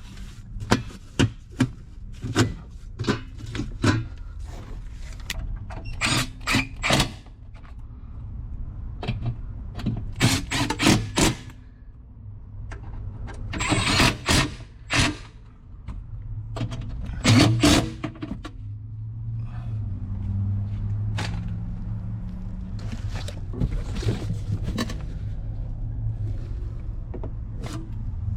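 Clicks, knocks and scrapes of hand tools and parts being worked during a battery replacement on a Mercedes-Benz Sprinter van, in irregular clusters. After about nineteen seconds the knocks thin out and a steady low hum carries on to the end.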